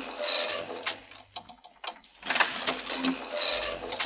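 Scissor lift's motor and scissor mechanism running with a rhythmic mechanical whirring and clicking. It is louder near the start and again from about two and a half seconds in.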